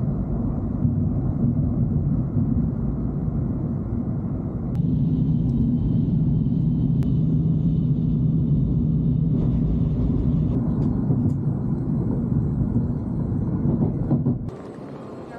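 Nozomi Shinkansen running at speed, heard from inside the passenger cabin: a steady low rumble with a hum. The sound changes suddenly about five seconds in and again around nine seconds, and drops sharply near the end.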